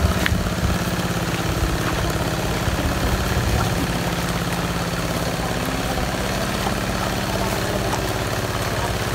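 A vehicle engine running steadily at an even pitch, with some low knocking and rumbling in the first few seconds.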